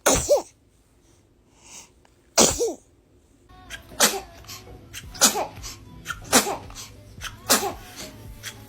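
A baby sneezing over and over in a sneezing fit, about six sharp sneezes, each with a short squeaky tail. After a gap of a couple of seconds they come closer together, about one a second, in the second half.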